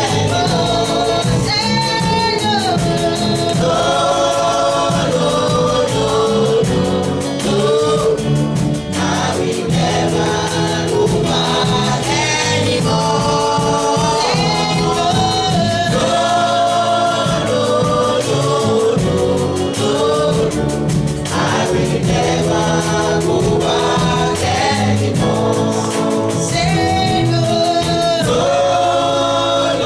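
Gospel worship music: a choir and congregation singing together over a band with a steady beat.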